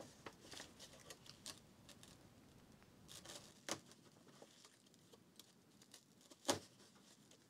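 Faint, sparse paper rustling and light ticks as an awl pierces sewing holes through a folded book signature set in a piercing cradle, with a sharper tick a little before four seconds in and a louder one about six and a half seconds in.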